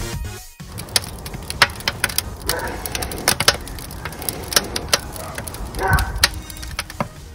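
Wood fire crackling and popping inside a file-cabinet smoker's firebox: irregular sharp snaps, several a second, over a low steady rumble.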